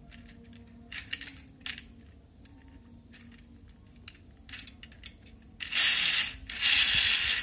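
Light plastic clicks as a toy steam locomotive is handled on its plastic track. About five and a half seconds in, a loud hiss starts from the switched-on locomotive, breaks off briefly and starts again.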